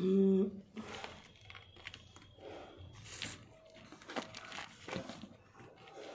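Raw cauliflower florets being shuffled and pushed about by hand, a crisp rustling and crackling with many small irregular clicks. A brief hum of a voice comes right at the start.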